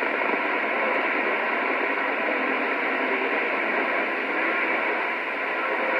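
CB radio receiver hissing with open-channel static between transmissions, a steady band-limited rush of noise with no voice on it. It is the band noise heard on the channel during long-distance skip conditions.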